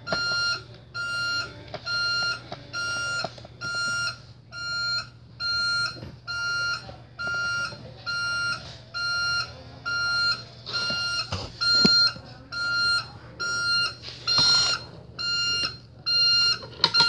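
Toy garbage truck's electronic backup-alarm beeper sounding a steady, evenly repeated beep, just over once a second. A few light plastic clicks and knocks come in the second half.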